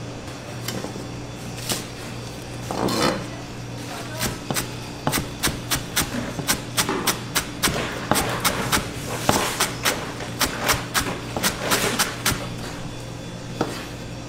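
Chef's knife chopping chives on a cutting board: a run of sharp knocks, about two to three a second, from about four seconds in until near the end, after a short scraping sound about three seconds in. A low steady hum runs underneath.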